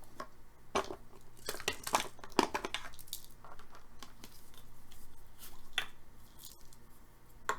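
Trading card packs and cards being handled: crinkly wrappers being torn and rustled, with a cluster of sharp crackles about a second in and a few more near the end.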